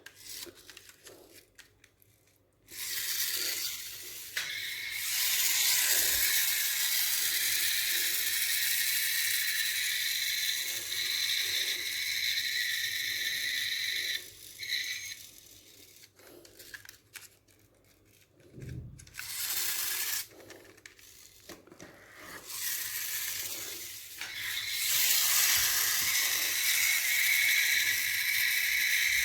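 Rustling and scraping of a box of toy cars being handled and unpacked, in long noisy stretches with quieter gaps holding scattered knocks.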